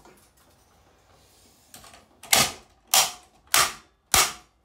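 Four sharp hammer blows striking a Lanson ceiling fan in quick, even succession, about one every 0.6 s, starting a little past two seconds in.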